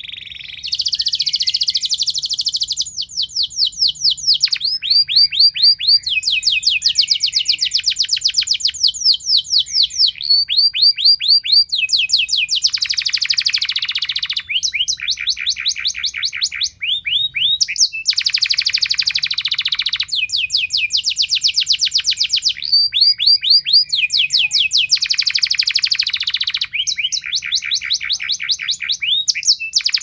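Domestic canary singing a long, loud song: fast trills of rapidly repeated notes, one phrase after another, each a second or two long, with hardly a pause.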